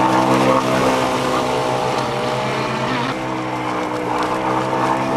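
MDS 28 two-stroke glow engine of a model power boat running at high revs with a steady note that wavers in pitch about halfway through, then settles again.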